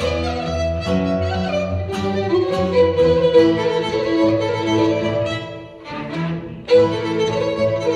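A gadulka, the Bulgarian bowed folk fiddle, playing with a chamber string orchestra of violins and cello. The music thins briefly about six seconds in, then comes back with a sharp loud accent.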